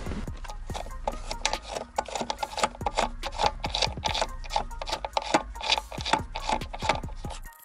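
Hands rubbing against carpet and handling the airbag control module and its wiring: a rapid, irregular series of rustles, scrapes and small clicks.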